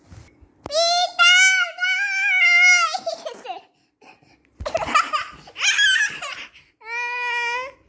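Two-year-old girl squealing and laughing close to the microphone: a long high squeal, a burst of laughter about five seconds in, and a shorter held squeal near the end.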